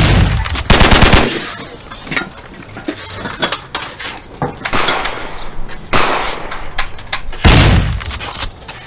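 Gunfire in a staged gunfight: a loud shot at the start, a rapid burst about a second in, then scattered shots around five and six seconds and a heavy blast near the end.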